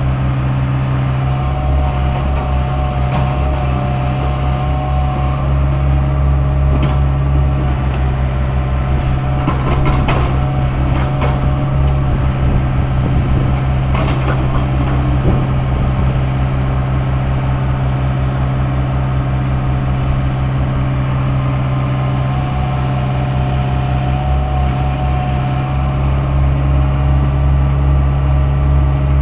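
Compact tracked excavator's diesel engine running steadily under digging load as the boom and bucket work. Short scrapes and knocks of the bucket in the dirt come about a third of the way through and again about halfway.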